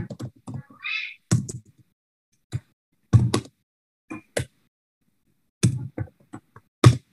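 Computer keyboard keys being struck in short irregular clusters of clicks, with gaps of complete silence between them.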